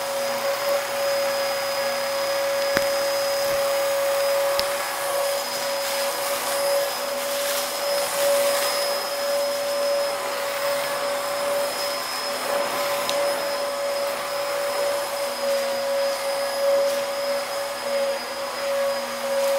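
Bissell vacuum cleaner running over a rug, its motor a steady whine over rushing air, the level swelling and easing slightly as it is pushed back and forth. A few sharp clicks come as bits of debris are sucked up.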